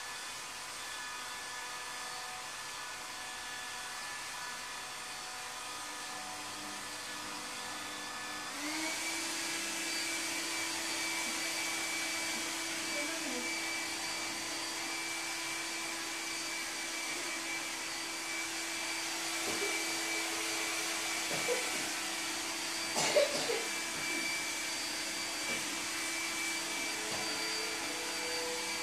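A motor's steady whir with a hum under it, which speeds up and grows louder about eight or nine seconds in and then holds. A few brief knocks come around twenty-two seconds in.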